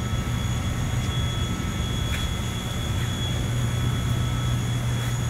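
Steady drone of large greenhouse ventilation fans: a low hum with a thin, high, steady whine above it.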